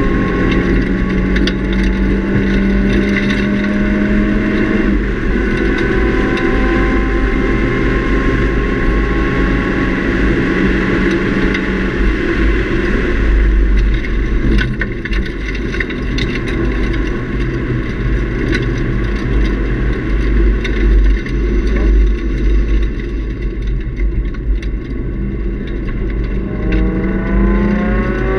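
2003 Nissan 350Z's 3.5-litre V6 with a Nismo cat-back exhaust, heard inside the cabin at track speed. The engine note climbs steadily for the first few seconds, then drops, and through the middle it fades under a steady road and wind rumble. Near the end it rises again under acceleration.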